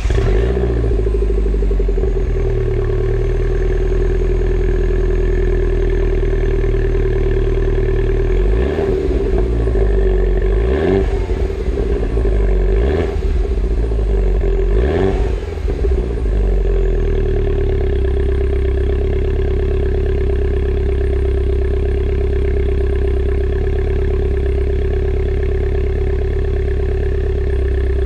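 Mini Cooper S (R56) 1.6-litre turbocharged four-cylinder engine running through a Remus aftermarket exhaust, idling steadily just after a cold start. In the middle it is given four short throttle blips about two seconds apart, each rising and falling in pitch, then it settles back to a steady idle.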